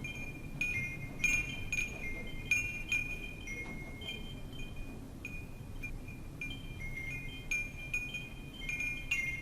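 Wind chimes ringing in irregular, overlapping strikes of a few high, clear tones, over a low, steady rush of wind.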